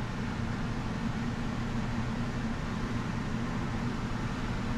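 Steady low hum with an even hiss: constant background room noise, with no separate events.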